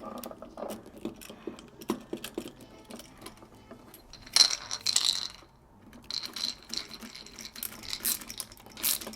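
Screwdriver and wire being worked onto a terminal screw of a Leviton Decora smart dimmer: scattered small clicks and scrapes, with louder scraping about four and a half seconds in and again near the end.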